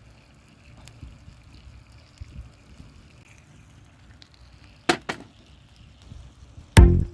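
Quiet low background with two sharp clicks about five seconds in, then background music with a strong beat starts near the end.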